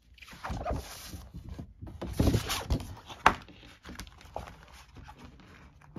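A large folding laminated game mat being turned over and laid back down on a table: irregular rustling of the stiff coated sheet, with a few sharp knocks and slaps in the middle as it lands and is smoothed out.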